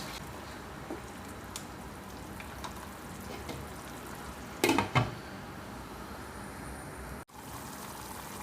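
Beef sizzling in a pot with dry spices, with a few light knocks of a utensil against the pot and one louder clatter about five seconds in.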